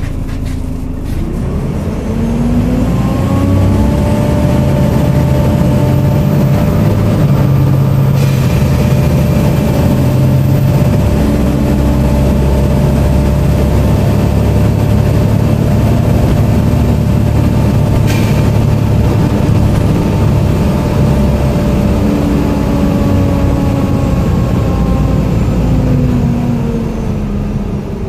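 Volvo B7TL double-decker bus heard from on board: the whine of its diesel engine and drivetrain, the 'hoover' sound, rises in pitch as it pulls away, holds steady while cruising, then falls away near the end as it slows.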